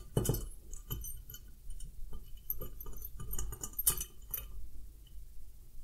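Screwdriver clinking and scraping against a stainless steel beer tower column as it works a worm gear hose clamp inside: irregular metal clicks and taps, the loudest about four seconds in.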